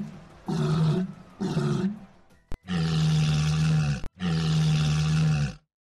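Walruses bellowing: a few short calls about a second apart, then two long calls held at a steady pitch.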